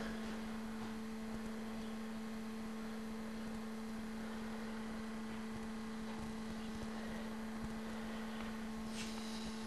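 A steady hum: one low tone with a fainter one an octave above, over faint hiss, with a brief faint rustle near the end.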